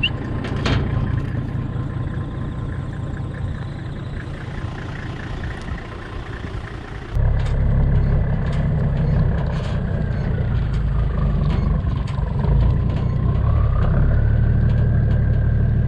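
Ute engine running as it drives across a paddock, with knocks and rattles from the rough ground. It gets suddenly louder about seven seconds in, and its pitch dips and rises again a few seconds later.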